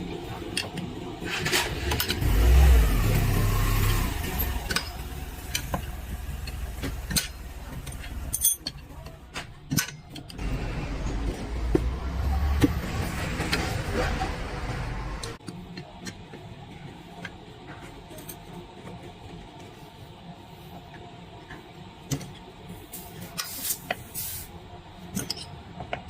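Two long spells of a motor running, about seven and five seconds long, with metal tools clicking and clanking throughout, as the scooter's wheel is worked on.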